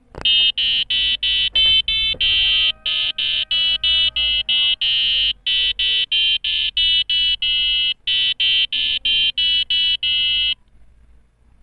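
Arduino-driven piezo buzzer playing the first song of a nursery-rhyme jukebox program as a melody of about two dozen short, buzzy beeping notes stepping up and down in pitch, with one longer held note around the middle. The tune stops abruptly about a second before the end.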